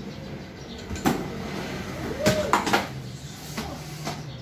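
Cardboard box being cut open and its flaps pulled back: scraping and rustling, with a sharp knock about a second in and a cluster of three loud knocks and scrapes around two and a half seconds in.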